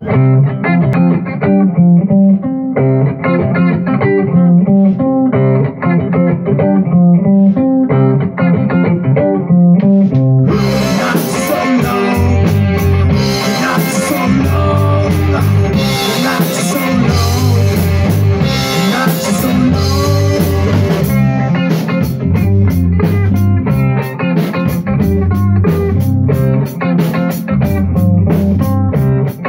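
Rock band playing a song live, guitar alone at first. About ten seconds in the drums and the rest of the band come in, and near two-thirds of the way a steady cymbal beat takes over.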